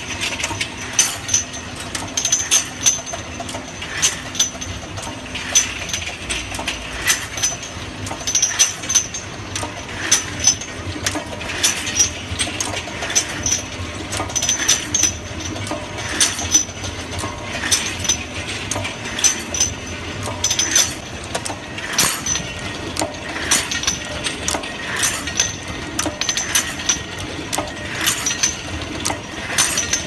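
Automatic syrup bottle washing, filling and sealing line running: a quick, uneven run of sharp mechanical clacks and clinks over a steady machine hum.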